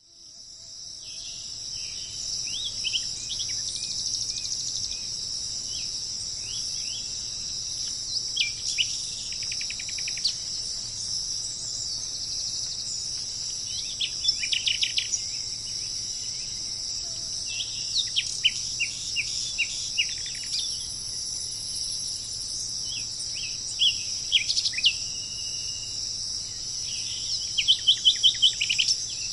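A steady, high insect chorus with a bird calling over it in short runs of quick chirping notes, repeated every few seconds. The sound fades in at the start.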